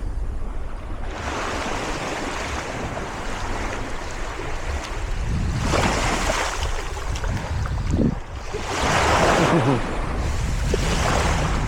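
Ocean surf breaking and washing up the shore, with wind buffeting the microphone. The surf swells up louder about six seconds in and again around nine to eleven seconds in.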